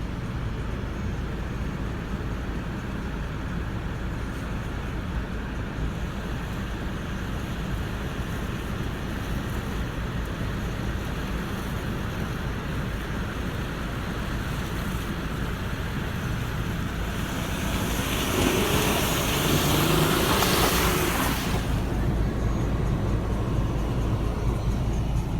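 Volkswagen Touareg SUV driving off-road: a steady low engine and drivetrain rumble, with a louder rushing noise lasting about three seconds roughly three-quarters of the way through.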